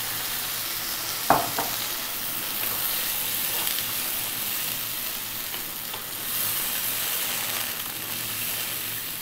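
Soy sauce, oyster sauce and water sizzling and bubbling in a frying pan over high heat, with a wooden spatula stirring mushrooms and onions through the sauce. A single sharp knock about a second in.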